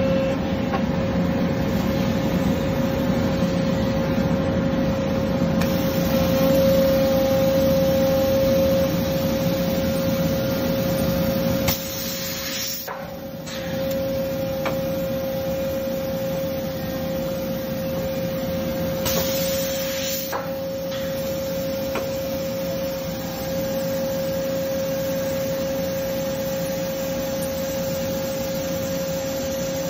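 Franklin HD145 x 44 CNC beam drill line running in a steel shop, with a steady hum carrying a constant whine and a rumble that eases off about twelve seconds in. Two brief hissing noises come through, one at about twelve seconds and one near twenty seconds.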